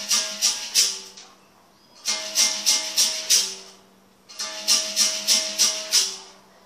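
Berimbau played solo: the stick strikes the steel wire in three quick phrases of several strokes each, every stroke with a shake of the caxixi rattle, the note switching between a higher and a lower pitch. The phrases are separated by pauses of about a second, and the last dies away near the end.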